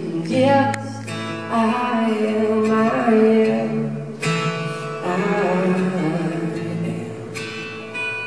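Live acoustic guitar music: a steel-string acoustic guitar strummed and picked, with a male voice singing over it at times.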